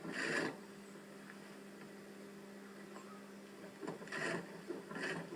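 JUKI sewing machine's electric motor humming steadily while the machine is idle, with a few brief handling noises at the start and about four and five seconds in.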